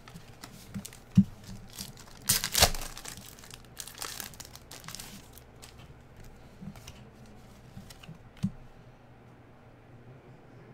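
A trading-card pack's plastic wrapper crinkling and tearing, loudest in a crackly burst a couple of seconds in. Basketball cards slide and tap as they are sorted, with a few sharp ticks.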